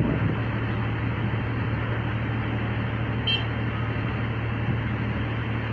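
Mobile crane's engine running steadily with a low hum, and a short high beep about three seconds in.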